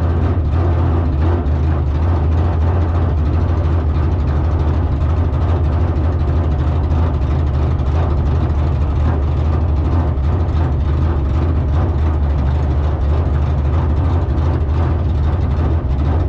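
Steady low drone of a vehicle engine running at an even speed, with no revving.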